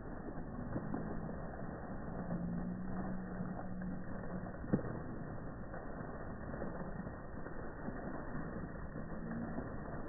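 Fountain jet splashing steadily into its pool, with a low steady hum through the first half and again briefly near the end, and a single click a little before the middle.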